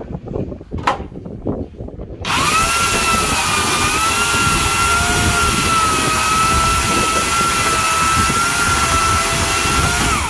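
Corded electric chainsaw switched on about two seconds in after a few handling knocks, running with a steady high whine as it saws through a log. It is a test cut with a freshly refitted and tensioned chain. The motor is released near the end and its pitch drops as it stops.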